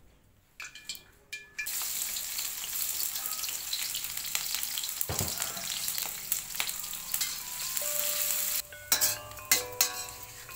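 Sliced shallots, garlic and chillies sizzling as they are sautéed in oil in a steel wok, with scattered clicks of stirring. The sizzle sets in about a second and a half in, and light chiming music comes in near the end.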